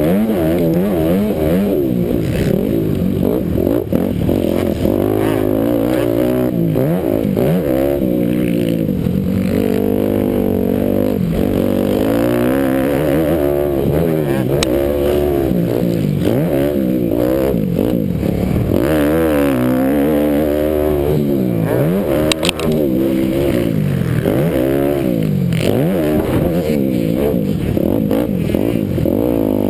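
Motocross dirt bike engine heard from the bike's own mounted camera, revving up and falling off again and again as the rider works the throttle around the track. A couple of sharp knocks come about two-thirds of the way through.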